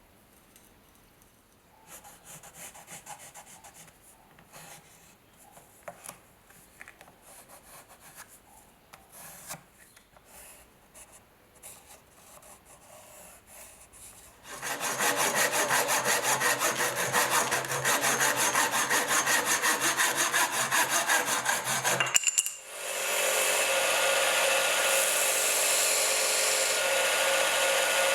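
Hand rubbing and scraping strokes, sparse and quiet at first, then fast, loud and rhythmic from about halfway in. After a short break near the end, a power tool runs steadily.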